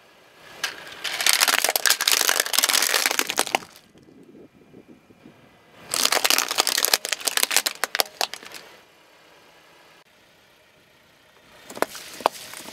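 Plastic toy cars and trailers cracking and snapping as a car tyre rolls over and crushes them, in two long bursts of dense crackling. Near the end, a few sharp snaps as small juice cartons burst under the tyre.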